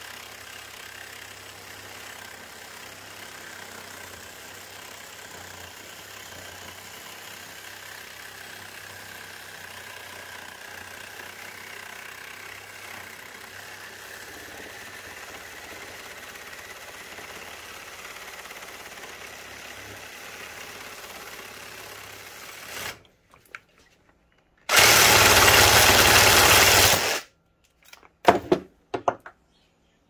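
Small electric reciprocating saw running steadily as its blade cuts through the steel end of a microwave magnetron's copper resonant cavity held in a vise. The saw stops about 23 seconds in; a loud burst of noise lasting about two seconds follows, then a few sharp metallic clicks near the end.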